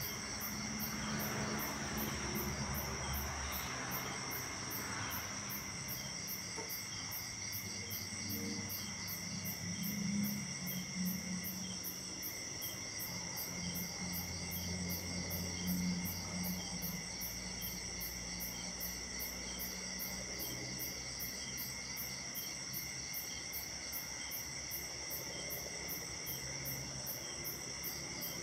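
Night chorus of crickets and other insects: steady high trills layered with a fast, even pulsing chirp. Under them a low hum swells and fades, loudest about ten and sixteen seconds in.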